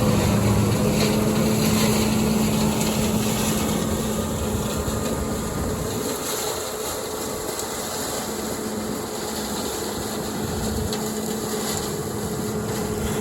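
John Deere 9400 combine running while harvesting soybeans with its 915 bean head: a steady engine and machine drone with a constant hum. The drone eases a little around the middle and then picks up again.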